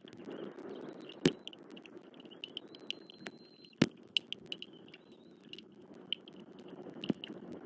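Steady rain on a nest camera, with heavy drops striking the camera housing in sharp ticks, two of them loud. A faint, high, repeated chirping runs behind.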